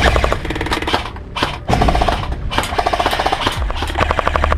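Airsoft electric machine gun (A&K M249) firing rapid full-auto bursts, a fast rattle of clicks over the whine of its gearbox motor, with a short pause about a second in.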